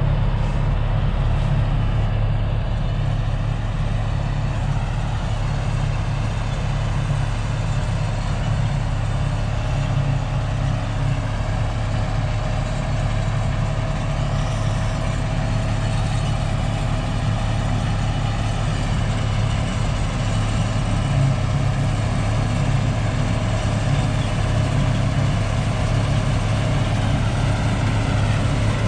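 Combine harvester running steadily under load during wheat cutting: a constant diesel engine and machinery drone with a strong low hum.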